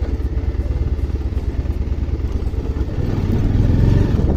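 Motorcycle engine running while the bike is ridden, getting somewhat louder about three seconds in.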